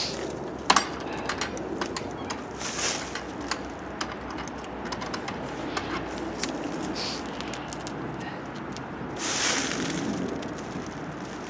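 Hands pressing sealing tape onto an RV window's frame and peeling away its paper backing: scattered clicks, taps and rustles, with a couple of short hissing bursts.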